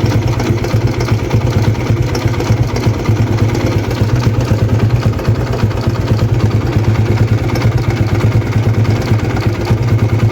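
TVS Apache RTR 160's single-cylinder engine idling with a fast, steady ticking from the timing chain: the sign of a worn cam chain tensioner that no longer keeps the chain tight, a noise that stopped once the tensioner was replaced.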